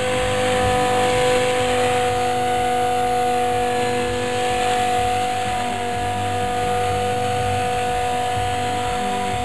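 Radio-controlled model helicopter in flight: a steady whine from its motor and drive holding one pitch over a noisy rotor wash.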